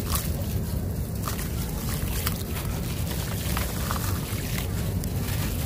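Dry, grainy sand-cement chunks crunching and crumbling as hands squeeze and rub them, with gritty crackles over a steady low rumble.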